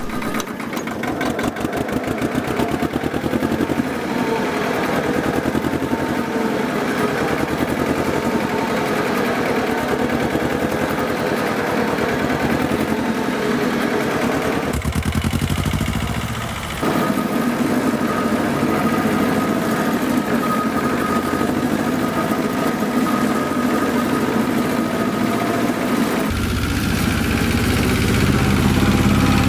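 Fiat 215 tractor's two-cylinder prechamber diesel engine running as the tractor is driven, with a steady rapid firing beat. The sound changes abruptly about halfway through and again near the end.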